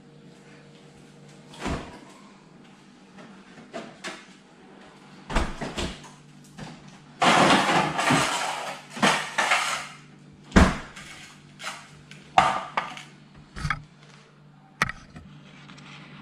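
Glassware and kitchen utensils clinking and knocking: a dozen or so separate clinks and knocks, with a longer clattering stretch about halfway through.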